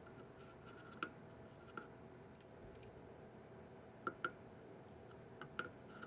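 Soldering a new capacitor's lead into a circuit board with a soldering iron and solder wire: faint, irregular sharp ticks, several in a few seconds, over a faint steady hum.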